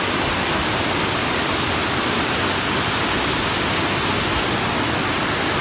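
Steady rush of water spilling through an arched stone dam, an even unbroken noise.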